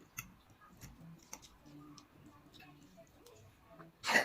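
Eating sounds while noodles are eaten: faint scattered clicks of mouth noises and utensils, then a short, much louder noisy sound near the end.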